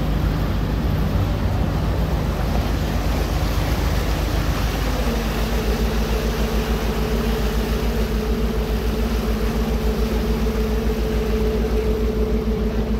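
Passenger ferry's engine running with a steady, pulsing drone and the rush of its churning wake; about five seconds in a higher steady hum joins the engine note.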